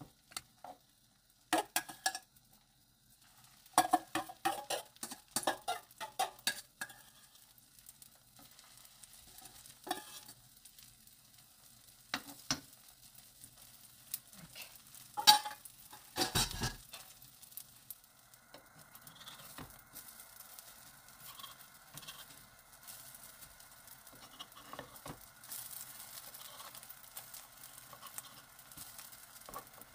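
A spoon clinks and scrapes against a bowl and pan as spoonfuls of leftover filling are scooped out, with a sharp knock partway through. After that comes a steady sizzle as the spoonfuls of filling fry in the pan.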